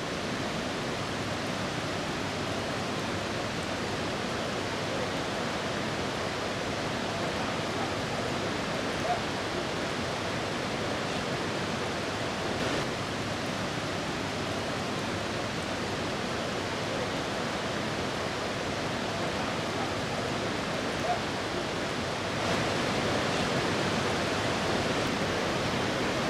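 Steady, even rushing hiss with no clear events, rising slightly in level about two-thirds of the way through.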